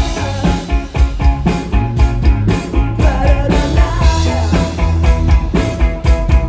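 A live rock band plays amplified electric guitar and drums with a steady beat, while a male lead singer sings over them.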